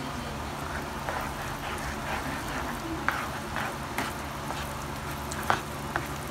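Refried beans with onion frying in lard in a pan, sizzling while a spatula stirs and scrapes them, with small sharp pops now and then, the loudest about five and a half seconds in.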